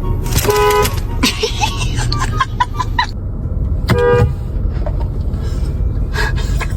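Car horn sounding two short honks, about half a second in and again about four seconds in, over a steady low rumble.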